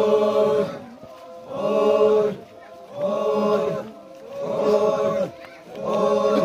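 Many voices chanting in unison, a short sung phrase repeated about every second and a half with brief pauses between.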